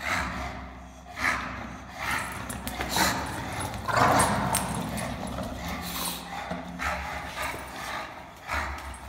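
English bulldog making excited noises in repeated short bursts, about one a second, as it rushes about and bites at its leash, with claws clattering on a hard floor; the loudest burst comes about four seconds in.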